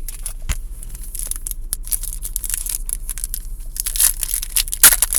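The wrapper of a baseball card pack being torn open and crinkled in the hands: a run of crackling and rustling that gets louder and denser about four seconds in.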